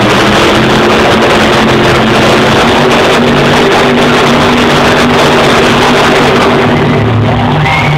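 Monster truck's supercharged V8 engine held at high revs through a burnout as the truck spins on the dirt, very loud and steady.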